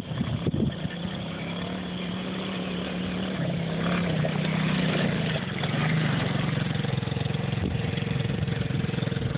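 Small youth quad ATV engine running at part throttle, its pitch stepping up and then dipping before holding steady, growing louder as the quad comes closer.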